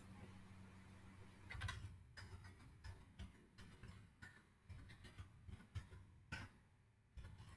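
Faint computer keyboard keystrokes, irregular clicks about two a second, as a long number is typed into a field; a faint low hum sits under the first second and a half.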